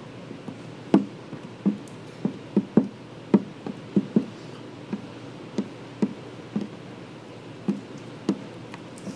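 Irregular soft knocks and taps, about two a second, from fingers and a small squeegee pressing wet paint-protection film down onto a headlight lens.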